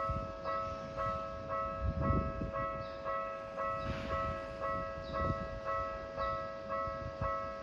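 Railway level-crossing warning bell ringing, a steady two-tone ding repeating about twice a second, with irregular low thuds underneath.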